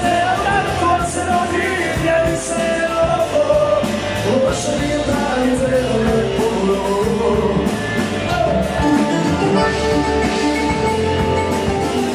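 Live band playing loud amplified dance music with accordion, keyboard and guitar over a steady drum beat, with a singer's voice over it.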